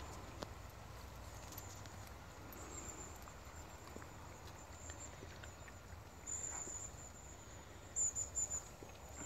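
Insects chirping in thin, high-pitched pulses, in several short bursts with the loudest about eight seconds in, over a faint low rumble of outdoor background.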